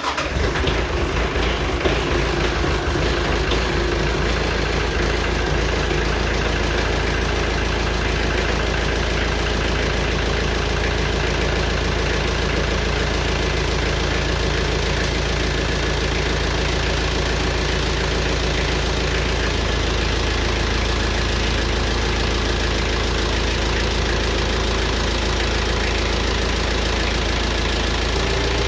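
McCormick X1.45 tractor's diesel engine running just after being started, a little uneven for the first few seconds and then steady.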